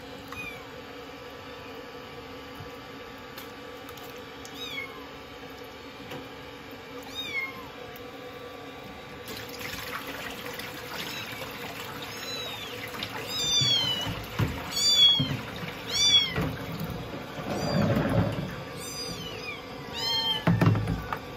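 Young kitten mewing in short, high, falling cries: a few spread out at first, then many in quick succession over the last third. Water sloshes and splashes in a washbasin from about halfway through as the kitten is bathed.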